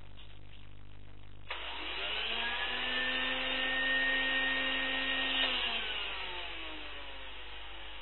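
1974 Hoover Junior 1346A vacuum cleaner motor switched on about one and a half seconds in, running up to speed with a rising whine, running steadily for about three seconds, then switched off and winding down in pitch.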